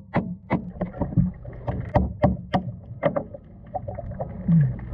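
A hammer striking the all-thread of a transom hull plate underwater, in a quick run of sharp knocks about two to three a second, with a short pause about three seconds in.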